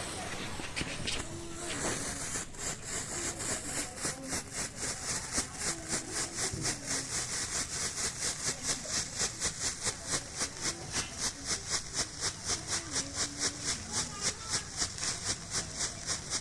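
A lit pretekan crackling firework fizzing and sputtering in an even pulse of about five beats a second, growing gradually louder as it burns.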